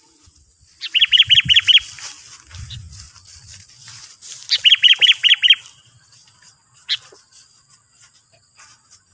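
Sooty-headed bulbul calling: two quick bursts of about six rapid, evenly spaced notes, about a second in and again about four and a half seconds in, then a single sharp note near 7 seconds. A faint steady high-pitched whine runs underneath.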